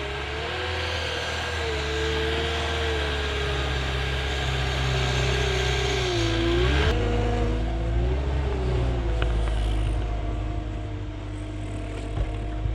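Vehicle engine running while driving over snow, its pitch dipping about six seconds in and then rising again as the engine speeds back up.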